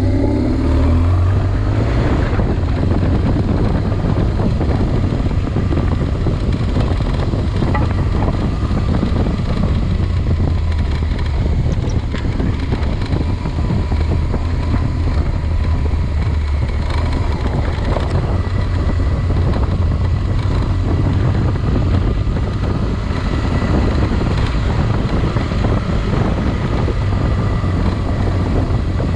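A vehicle engine running steadily, with wind noise on the microphone.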